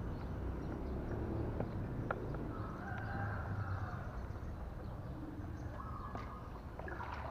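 Kayak paddle stroking slowly through calm water, with a steady low rumble, a couple of faint knocks and two drawn-out bird calls in the background.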